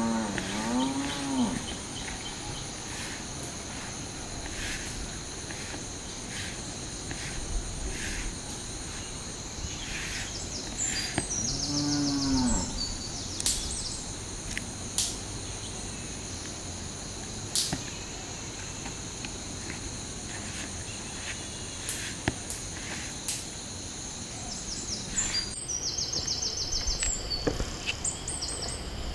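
Steady high insect drone with a low, pitched animal call that rises and falls near the start and again about twelve seconds in. Scattered splashes and knocks come from hands working in a plastic basin of water, and water is poured in from a dipper.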